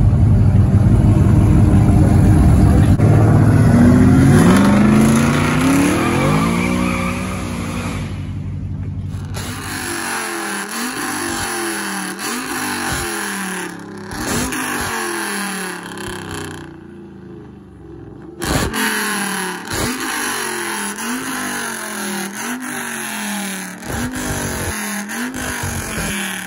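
Pickup truck exhaust at high volume: a truck engine pulls hard with its pitch climbing as it accelerates. Then the throttle is blipped over and over, each rev rising and falling about once a second.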